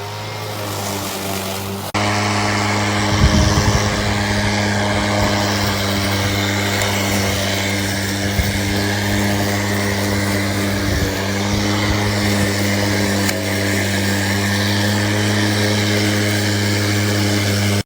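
Cordless battery-powered electric lawn mower's motor and blade spinning up at the press of the start button, then running with a steady low hum. It gets abruptly louder about two seconds in.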